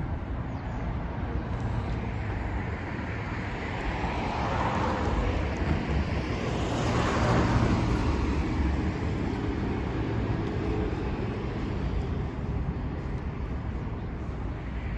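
Street traffic: road noise from cars driving by, one passing close and swelling to its loudest about halfway through before fading away.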